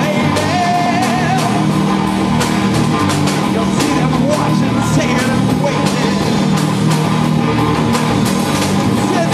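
Rock band playing live: electric guitar and a drum kit with frequent cymbal hits, under a sung vocal line, continuous and loud.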